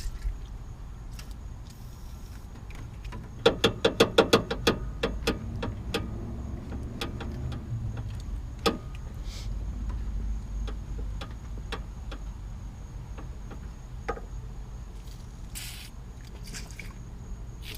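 Aerosol can of white lithium grease being shaken, its mixing ball rattling in quick clicks for about two seconds, then a few short hisses of spray near the end as the hood latch is greased to stop a squeak.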